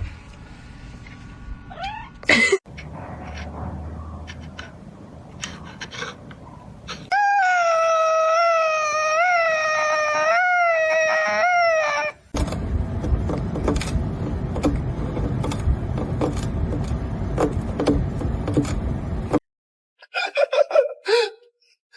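A domestic cat's long, wavering yowl lasting about five seconds, with shorter meows near the start and the end. Between them come rustling and knocking noises.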